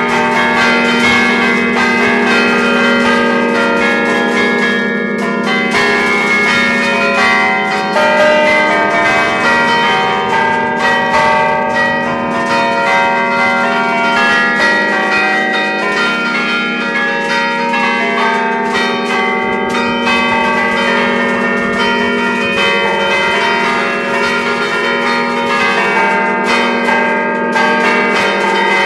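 Church bells of the 1951 Achille Mazzola ring, tuned in a slightly flat E-flat, heard close up from inside the belfry. They ring continuously with frequent overlapping strokes, their tones hanging on into one another.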